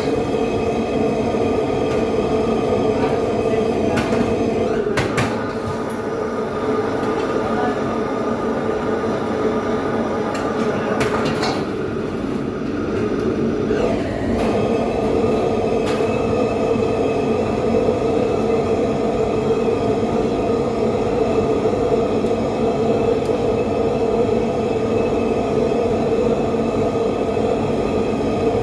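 Commercial gas wok burner and extractor hood running with a loud, steady rush and hum. A few sharp metal clicks of the ladle against the wok, about five, eleven and sixteen seconds in.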